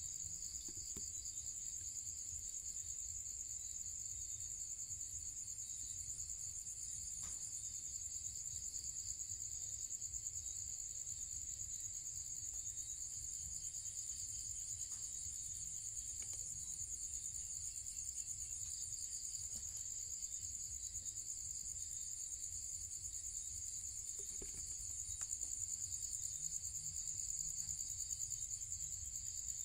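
Crickets trilling steadily in a continuous high-pitched chorus, a little louder near the end, over a low rumble.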